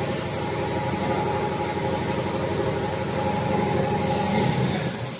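DRC-75 cereal-bar cutting machine running, its conveyor and cutter making a steady mechanical rattle with a humming tone. A hiss comes in about four seconds in, and the machine noise falls away near the end.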